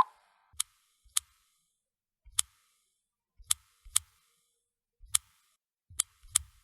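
Typing on a phone: single key taps, each a sharp click with a soft thump, coming slowly and unevenly, about nine in all, the first the loudest.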